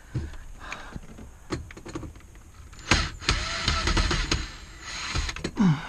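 Clicks and knocks of car interior trim and parts being handled, with a louder stretch of whirring noise lasting about two seconds, starting about three seconds in.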